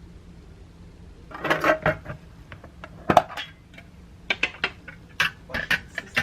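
Dishes and cutlery clinking and knocking against each other, a string of separate sharp clinks starting about a second in.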